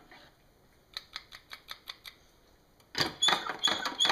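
Gaggia Classic's chrome-plated brass portafilter being tapped to settle and level the ground coffee in its basket. A run of light, quick ticks comes about a second in, then louder ringing metal knocks, about three a second, from about three seconds in.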